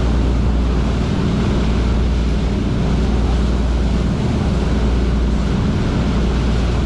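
Engines of the sightseeing boat Wonder Naruto running steadily at cruising speed, a low even drone, under the rush of the churning wake and wind on the microphone at the open stern deck.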